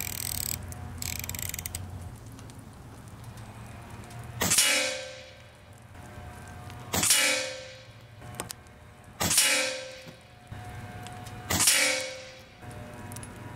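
Four shots from a .25 calibre AEA HP Standard Custom regulated PCP air rifle, fired about two and a half seconds apart. Each is a sharp crack followed by a ringing tail of about a second.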